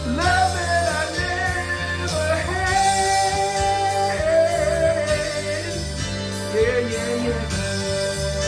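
A rock-pop song with a lead voice singing long held and sliding notes over the band, with no clear words.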